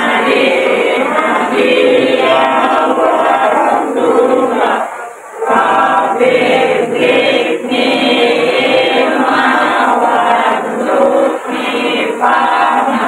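A choir singing with music, many voices together, dipping briefly about five seconds in before going on.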